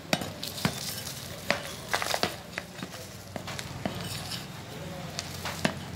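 Moist kitchen-waste compost being tipped out of a plastic pot onto a concrete floor: a steady rustle of spilling soil broken by irregular sharp taps and clatter as clumps and grit land and the pot knocks.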